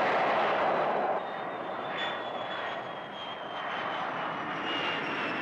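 Jet engine of a straight-winged jet with wingtip tanks (Lockheed T-33 type) at high power during its takeoff run. A loud rushing roar steps down about a second in, and a high whine then slowly falls in pitch as the jet passes.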